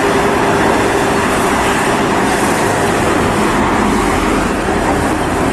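Road traffic noise as a Fiat minibus drives past along a street, other cars going by. The sound is a steady, even rush, with a faint hum under it in the first few seconds.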